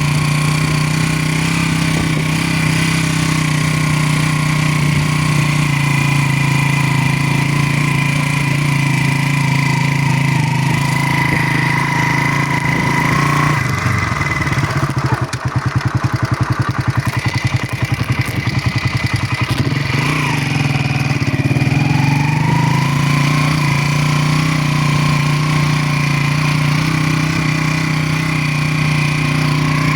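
Motorcycle engine running at a steady speed. About halfway through, the revs drop to a slow putter for several seconds, then climb back up to a steady run.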